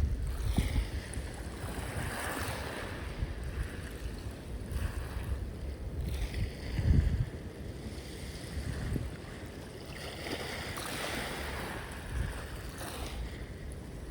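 Sea waves washing onto the shore, several swells rising and fading. Wind buffets the microphone in low gusts, hardest about halfway through.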